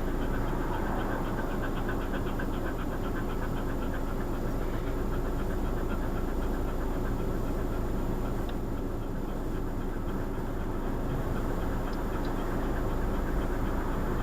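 A car driving steadily: continuous engine and road noise, with a faint rapid ticking over the first half.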